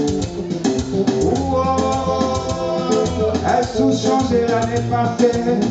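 Live band playing, led by electric guitar over a low bass line, with percussion keeping a steady beat.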